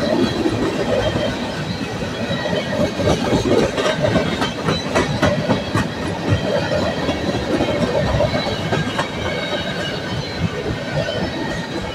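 A freight train's tank cars rolling past with a continuous rumble and clatter, the wheels knocking over rail joints, heaviest a few seconds in. A thin, steady high squeal from the wheels runs over it.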